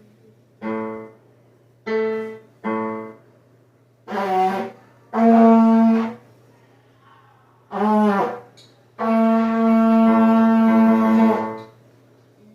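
Trombone played with its tuning slide removed, giving a buzzy, unusual tone: seven notes near the same low pitch. There are three short ones, one that bends, a held note of about a second, another that bends down, and a final note held about three seconds.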